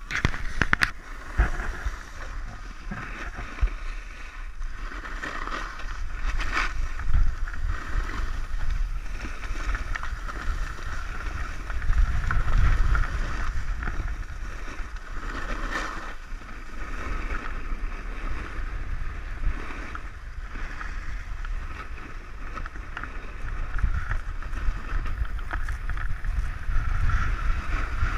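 Wind buffeting the microphone of a handheld camera while riding down a ski slope, with the steady hiss and scrape of sliding over packed snow, swelling and easing as speed changes, and a few sharp knocks near the start.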